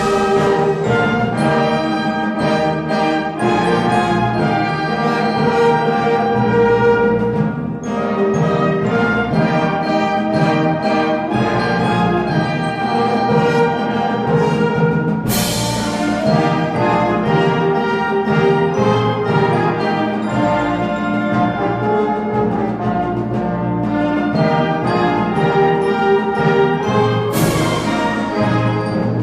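Orchestral music with prominent brass, sustained chords throughout, with a sudden bright crash about halfway through and another near the end.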